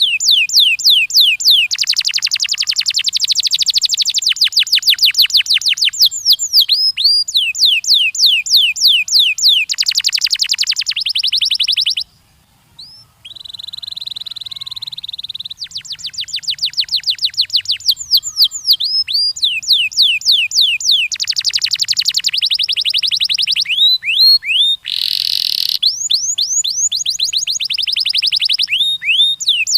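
Domestic canary singing: long fast trills of quick down-sweeping notes, changing from one phrase to the next, with a brief break about twelve seconds in followed by a steady held note.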